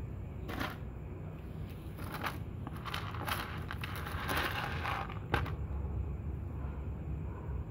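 A cat crunching dry kibble: irregular crackly chewing for about five seconds, densest in the middle, with a sharper click near the end, over a steady low rumble.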